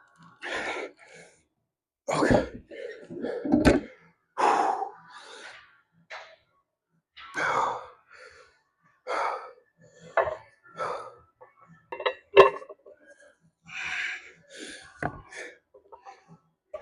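A man breathing hard and gasping through a set of weightlifting reps, a short forceful breath about every second or so. A few sharp clanks come in between.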